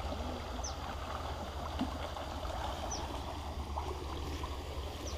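Muddy floodwater rushing steadily through a rain-swollen creek. A few short, high, falling chirps sound over the water, about three times.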